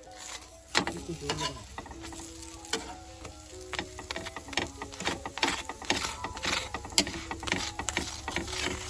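Aloo paratha frying on a hot nonstick tawa, sizzling as a spatula repeatedly presses and scrapes it against the griddle in short strokes.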